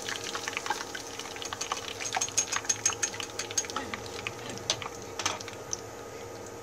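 Hot frying oil crackling and popping around a panko-breaded cheese stick just lifted from the deep-frying pot in a wire mesh strainer. The pops come irregularly, thickest in the middle and thinning out near the end.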